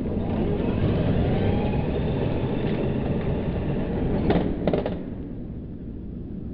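Radio-controlled buggy driving across pavement, its motor whining up and down in pitch over the noise of the run. There are a few sharp knocks about four and a half seconds in, after which the sound drops away.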